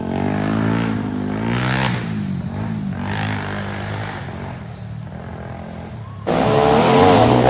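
Off-road dirt bike engines revving, rising and falling in pitch as riders work through the course. About six seconds in the engine sound becomes abruptly louder.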